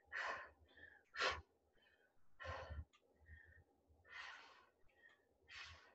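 A woman breathing hard while exercising: five short, sharp breaths about a second and a half apart, keeping time with fast lunges and dumbbell curls.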